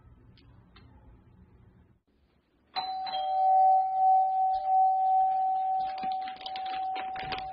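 An electric doorbell starts ringing suddenly about three seconds in and holds one steady ring, with many short sharp knocks or clicks over it near the end.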